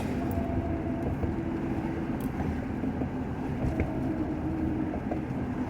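Steady road and engine noise inside a moving car's cabin, with a faint steady hum.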